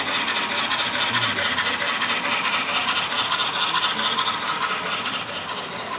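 H0 model train, a steam locomotive pulling passenger coaches, running on the track: a steady rattling hiss that eases slightly near the end.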